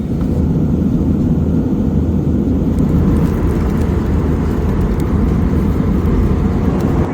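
Steady low rumble of a moving vehicle heard from inside it, starting and stopping abruptly.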